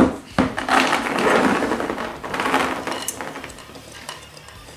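A large clear bowl of gummy fruit snacks knocked against the table and tipped over: the gummies spill out onto the tabletop in a dense clattering rush that tails off over a few seconds.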